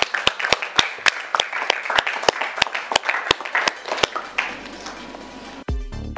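A small audience applauding, with separate hand claps at about five a second that die away around four seconds in. Near the end, electronic dance music with a heavy bass beat starts abruptly.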